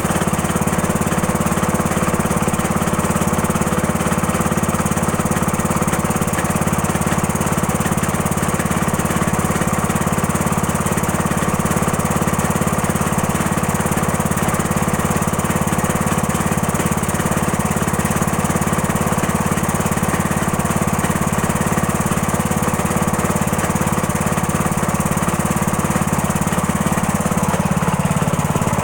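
Cub Cadet tractor engine running steadily, an engine its owner calls bad. Its speed dips slightly near the end.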